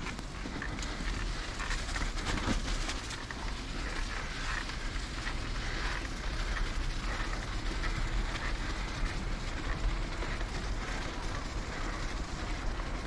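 Bicycle tyres rolling over a snow-covered wooden footbridge deck: a steady low rumbling noise scattered with many small crunches and clicks.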